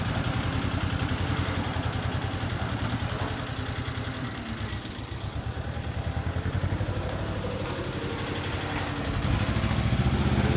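Engine of a small yellow wheel loader running steadily, dipping a little around the middle and getting louder again near the end.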